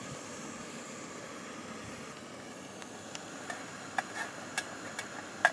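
Coleman 533 pressurised liquid-fuel stove burning under a saucepan of water, its burner giving a steady hiss. A handful of sharp clicks sound from about halfway through, the loudest near the end.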